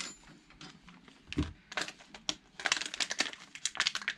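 Hands handling small objects and plastic packaging on a tabletop: a dull knock about a second and a half in, then a quick run of small clicks, taps and crinkles.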